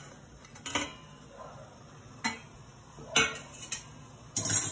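Stainless steel lid and steamer pot clinking: a handful of sharp metal knocks, spaced out, the loudest near the end.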